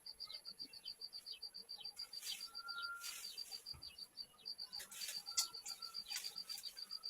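Rapid, steady chirping, about seven short high chirps a second, with brief falling call notes mixed in. Twice there are spells of hissing noise.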